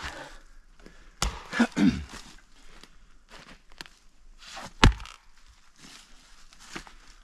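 An axe striking a log round set on a chopping block: a few sharp knocks, the loudest about five seconds in, with the blade biting into the wood without splitting it through.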